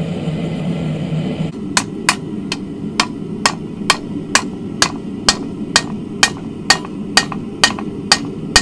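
Hand hammer striking a red-hot steel lawnmower blade on an anvil, about two blows a second starting a couple of seconds in, each blow ringing and followed by a lighter rebound tap. The forge hums steadily underneath.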